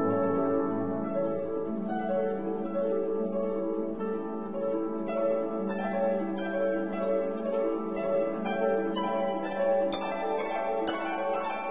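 Instrumental music: quick plucked string notes over held tones.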